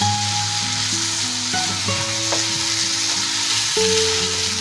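Mashed elephant apple pulp frying in mustard oil in a wok, sizzling steadily as a wooden spatula stirs it, with background music underneath.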